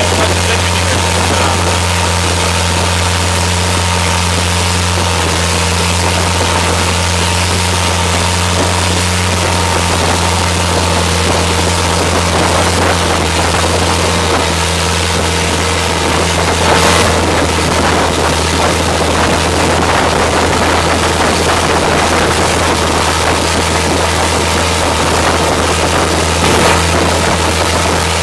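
Long-tail river boat's engine running steadily at speed, a constant low drone, with water and wind rushing past the hull. Two brief louder splashes come about halfway through and again near the end.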